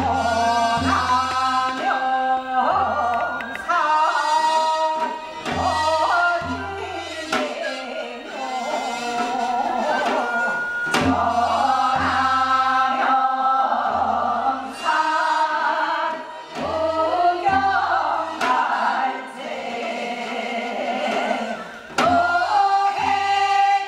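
A group of singers singing a Korean folk song together in long, bending held notes, accompanied by a drum striking a recurring beat.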